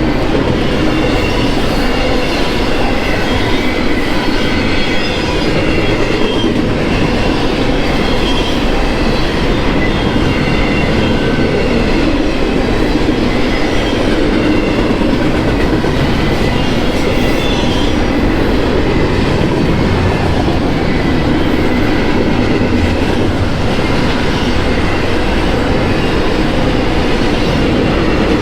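Union Pacific container freight train rolling past at close range: a steady, loud rumble and clatter of steel wheels over the rail joints, with thin high wheel squeals wavering over it.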